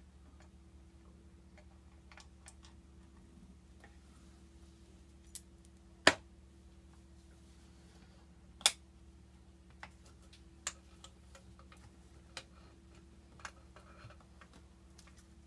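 Scattered sharp clicks and knocks of hands and tools on a diesel generator's starter motor as its last mounting bolt is taken out and the motor is worked loose. The two loudest come about six and nine seconds in, over a faint steady hum.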